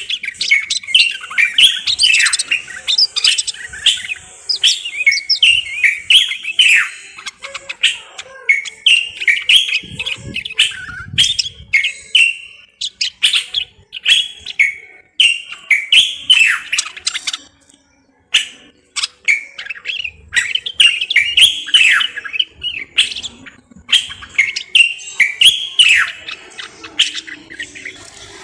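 Common bulbul (Moroccan bulbul) singing: a fast, nearly unbroken stream of short whistled phrases with quick pitch sweeps, pausing briefly about two-thirds of the way in.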